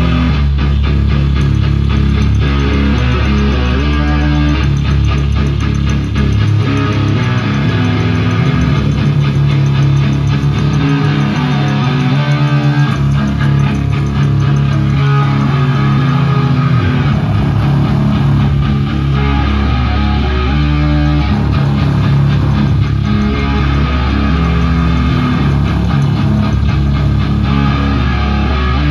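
Live metal band playing loud: distorted electric guitar and bass guitar over a full drum kit, with shifting bass notes and dense drumming throughout.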